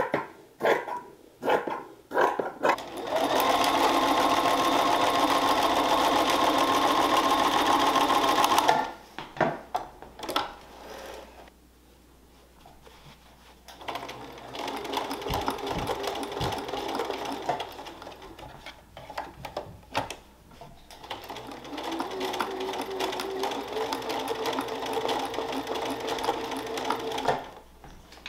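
A few sharp scissor snips through fabric, then an electric sewing machine stitching in three runs, loudest in the first run about three seconds in, with short pauses between runs as the fabric is repositioned.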